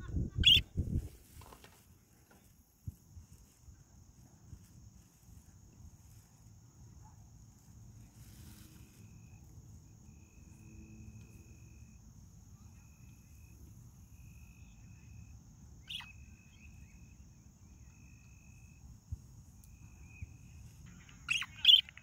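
Budgerigars chirping in short sharp calls: one about half a second in, another past the middle, and a quick cluster near the end. In between, a steady thin high-pitched insect drone and a run of short repeated tones carry on over outdoor ambience.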